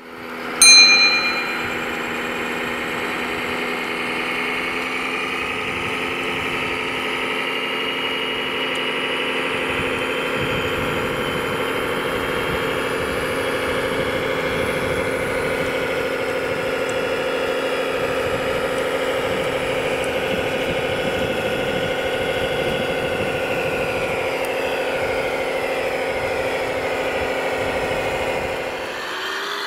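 Radio-controlled model construction vehicle running steadily with an engine-like hum. A single sharp metallic ring comes about a second in.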